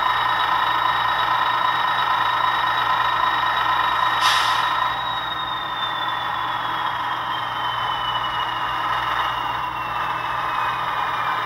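Sound-decoder diesel engine sound from a model ALCO RS-1 locomotive's small speaker: the prime mover running steadily with a rattly hum. There is a short hiss about four seconds in, then a thin whine that slides slowly down in pitch while the train arrives and slows.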